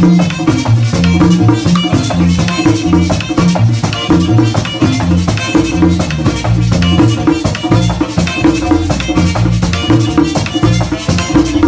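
Live merengue típico band playing: accordion and saxophone over a steady scraping güira and tambora beat, with a stepping bass line underneath.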